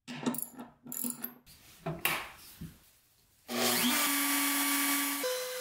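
A few short scraping, rubbing sounds as the clamp bolts on the CNC bed are tightened with a hand tool. Then, about three and a half seconds in, a Makita RT0701C compact router starts up: a whine that rises briefly and holds steady over a hiss, shifting to a higher tone about five seconds in.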